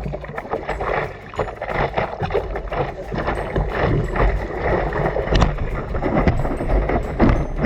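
Seawater splashing and sloshing close to the microphone, with wind noise buffeting the microphone in irregular gusts.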